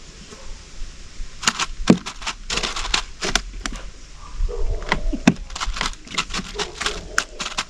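Close handling noise: a quick, irregular run of sharp clicks and crackles as fishing tackle is worked by hand in a small boat, over a low rumble of wind on the microphone.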